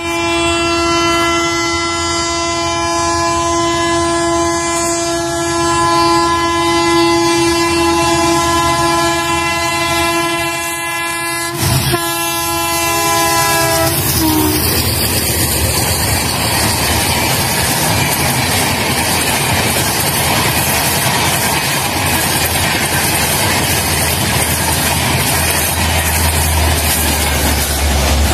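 Indian diesel passenger locomotive sounding its horn in one long blast of about fourteen seconds, the pitch dropping as it passes close by. Then the locomotive and coaches rush past with a steady noise of engine and wheels on rails.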